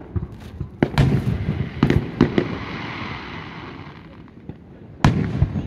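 Aerial fireworks shells bursting: several sharp booms in the first two seconds, a hiss that fades over the next two seconds, then another loud boom about five seconds in.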